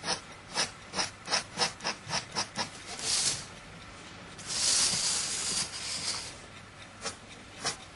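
Quick, scratchy strokes of a pen on paper, about three a second, like someone drawing or hatching lines. In the middle the strokes give way to a short rubbing hiss and then a longer one, about two seconds, before the strokes start again near the end.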